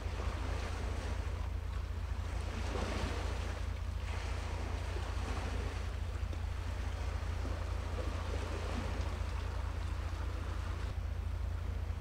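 Wind and waves: a steady low rumble of wind on the microphone under the even hiss of water washing, which swells briefly about three seconds in.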